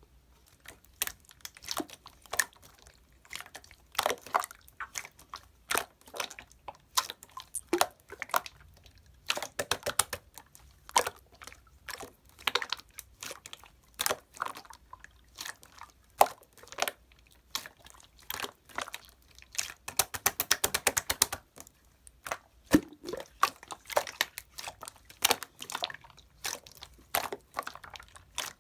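Irregular sharp clicks and taps close to the microphone, with a rapid run of quick clicks about two-thirds of the way through.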